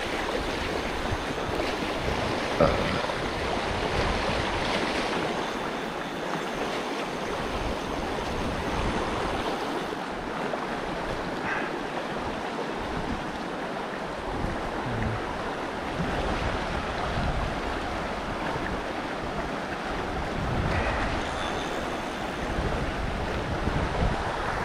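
Fast, shallow river water rushing over rocks in a riffle, a steady rush of whitewater.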